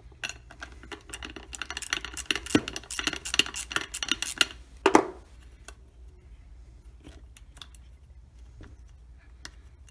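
Ratchet wrench clicking rapidly as the nut on a clutch flyweight pin is backed off, then one louder metal clunk about five seconds in, followed by a few light metal ticks.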